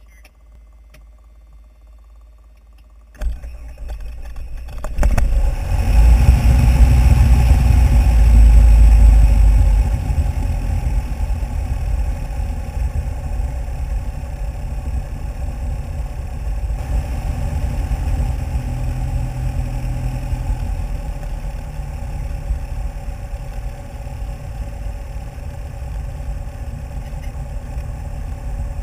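A light aircraft's piston engine starting, heard from inside the cabin. The starter kicks in about three seconds in and the engine catches about two seconds later, running loudest for a few seconds before settling to a steady, lower idle.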